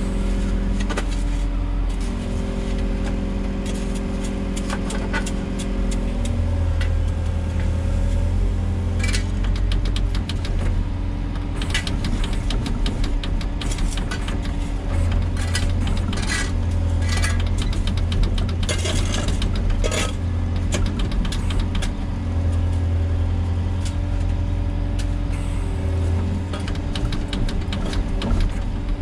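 Volvo EWR150E wheeled excavator's diesel engine and hydraulics running steadily, the engine's pitch and load shifting a few times as the machine works. From about nine to twenty seconds in, scattered sharp clatters and knocks sound over the engine.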